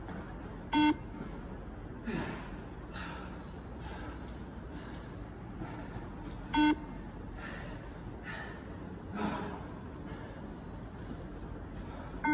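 Beep test (multistage shuttle run) recording sounding its shuttle beep three times, about six seconds apart, each beep marking the runner's turn at the line. Faint footfalls of the runner are heard between the beeps.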